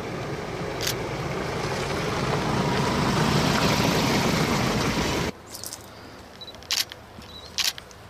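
Pickup truck driving by on a gravel dirt road, its engine and tyres growing louder as it comes close. The sound cuts off abruptly a little past halfway. After that it is quieter, with a few sharp clicks.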